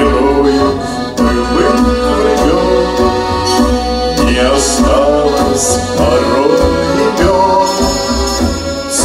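Accordion-led music with a steady bass beat, and a man singing over it.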